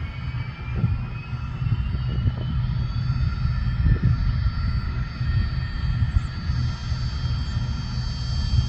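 Bombardier Challenger 3500 business jet's twin Honeywell HTF7350 turbofans running, a steady low rumble under several high whines. One whine rises in pitch over the first few seconds.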